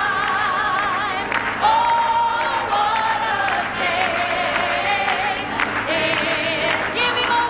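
Gospel choir singing with a female soloist leading, long held notes with vibrato.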